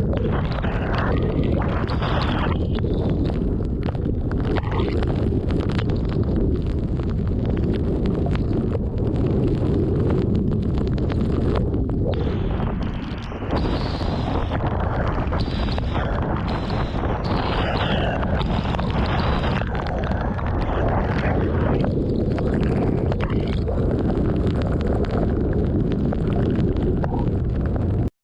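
Strong thunderstorm winds gusting hard against the microphone, a loud continuous rumble with swelling gusts that eases briefly about halfway through.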